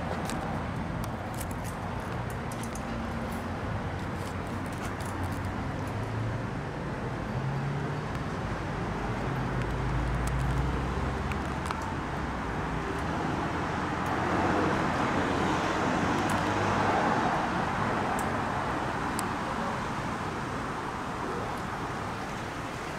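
Road traffic running steadily over a low engine hum, swelling louder for a few seconds past the middle as a vehicle passes.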